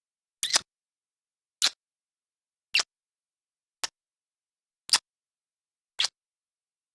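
Kiss sound effect: six short lip smacks, one about every second, each followed by silence.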